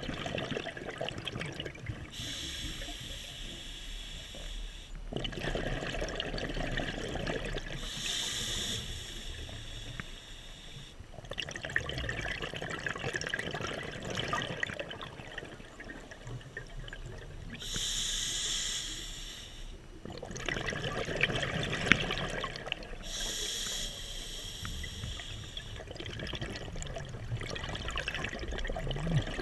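A scuba diver breathing underwater through a regulator: slow, regular breaths, each with a hissing rush and a gurgling wash of exhaled bubbles, several seconds apart.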